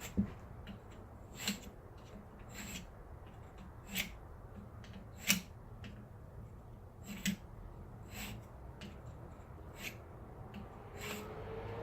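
Light metallic clicks and clinks, irregular, roughly one a second, as steering-gearbox parts and tools are handled during disassembly.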